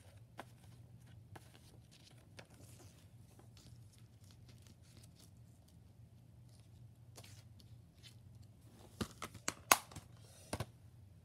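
Faint rustling as a paper insert and a plastic Blu-ray case are handled, then a quick cluster of sharp plastic clicks from about nine to ten and a half seconds in.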